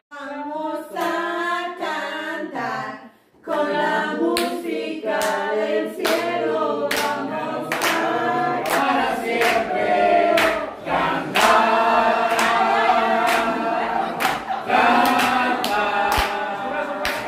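A small group of men and women singing a Spanish worship song together without words spoken over it. From about four seconds in, hands clap along in time.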